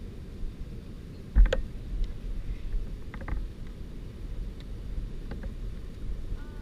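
Low rumble of wind on a small action-camera microphone, with a few light clicks and one thump about a second and a half in.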